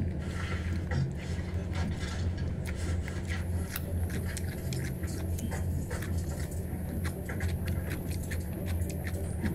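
Metal chopsticks tossing salad in a stainless steel bowl: many small clicks and scrapes of the chopsticks against the bowl and rustling leaves, over a steady low hum.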